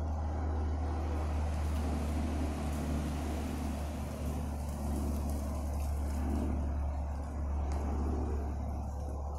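Steady low engine rumble of an unseen motor vehicle.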